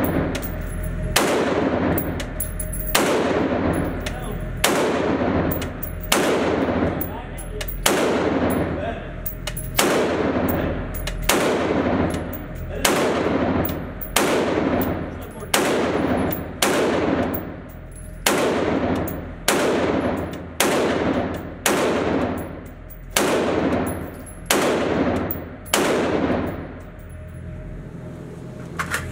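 Beretta ARX 100 5.56 semi-automatic rifle fired at a steady pace of about one shot a second, each shot echoing in an indoor range. The shooting stops shortly before the end.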